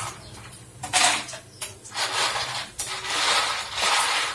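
Dried moong dal badi (mangodi) dropped by the handful into hot oil in a kadai, sizzling and clattering into the pan in several irregular bursts from about a second in.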